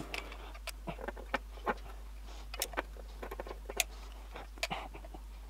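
Sparse, irregular light clicks and taps: handling noise from picking up silicone and starting to run a bead around a pond pipe flange connector.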